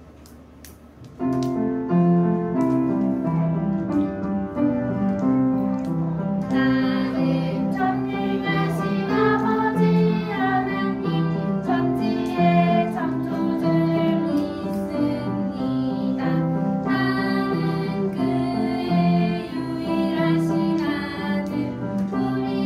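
A song with piano or keyboard accompaniment starts about a second in. From about six seconds in, women's and children's voices sing along.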